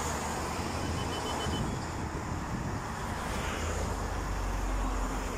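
Steady outdoor rumble and hiss of road traffic with wind on the microphone; no blast or sharp bang is heard.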